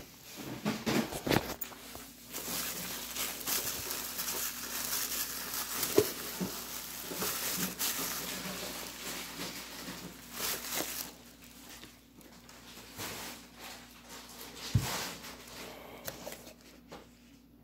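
Thin plastic takeout bag crinkling and rustling as hands unpack food, with sharp clicks and knocks as containers are handled and set down. The crinkling is busiest for the first ten seconds or so, then gives way to quieter handling and a single louder knock near the end.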